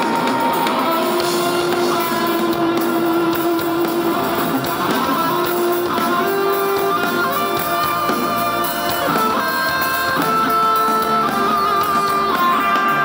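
Live band playing, an electric guitar to the fore with long held melody notes that step from pitch to pitch over drums and keyboard.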